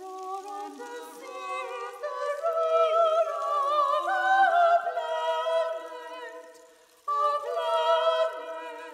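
Soprano and mezzo-soprano singing a slow classical vocal duet with wide vibrato. Phrases swell and fade away, and a new phrase enters sharply about seven seconds in.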